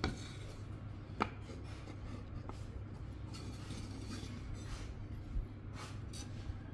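Hand handling of a wooden plank and a piece of bone: a sharp knock at the start and another about a second in, then soft rubbing and scraping as the bone is held and positioned against the wood, over a low steady hum. No drill is running.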